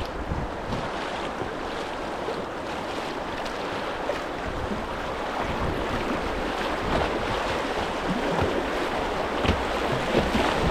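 White-water river rushing around a kayak, a steady hiss of moving water that grows gradually louder, with a few short splashes near the end.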